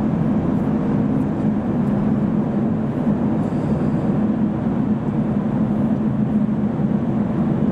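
Steady low hum of a car creeping across a ferry's enclosed vehicle deck, with engine and tyre noise heard from inside the car.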